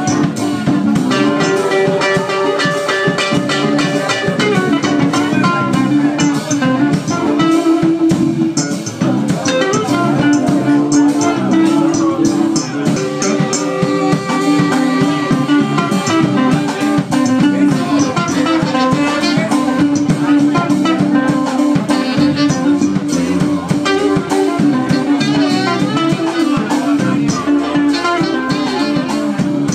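A live band playing with saxophones, guitar and drums.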